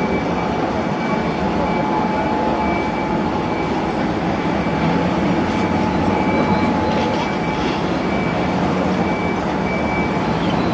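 Steady engine drone of a boat under way, with a steady high whine and a faint high beep repeating about once a second.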